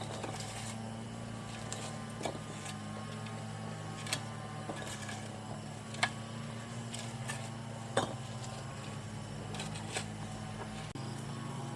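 Sharp knocks about every two seconds over a steady low hum.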